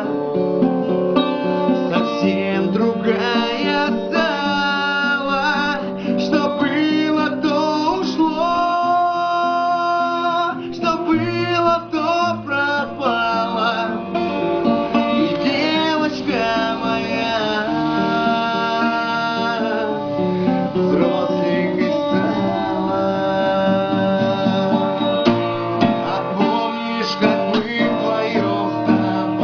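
A man singing a song with a strummed acoustic guitar accompaniment.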